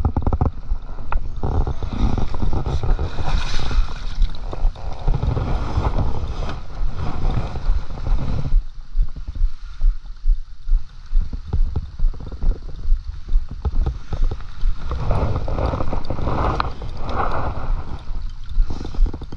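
Wind rumbling on the microphone over river water sloshing close by, with scattered small knocks; the noise thins out for a while past the middle.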